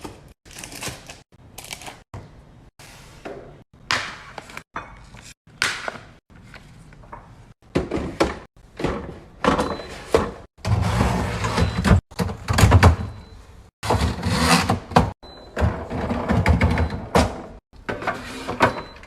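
Thunks and clatters of containers and food items being set down and arranged in a refrigerator, in a string of short clips that break off abruptly one after another.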